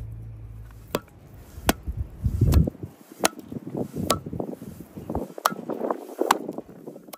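Spoon scraping and knocking against a steel pan as thick halva is pressed and shaped. There are sharp metallic clicks about once every three-quarters of a second, with softer scraping and dull thuds between them.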